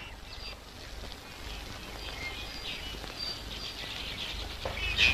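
Quiet outdoor film-soundtrack ambience with a low hum and scattered short, high bird chirps. A brief laugh comes just before the end.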